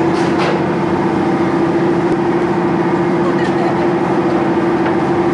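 Steady drone of a cruise ship's machinery heard on the open deck: a constant hum with one strong held tone over a noisy rush.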